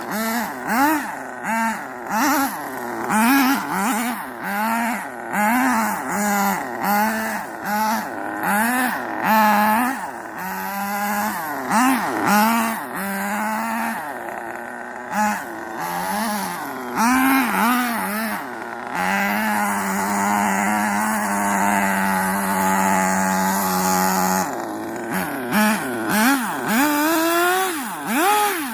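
Electric RC truck (Traxxas Rustler with a Jato two-speed transmission) driving, its motor and drivetrain whining up and down in pitch in quick repeated bursts of throttle. About two-thirds of the way through it holds one steady pitch for about five seconds in a sustained run.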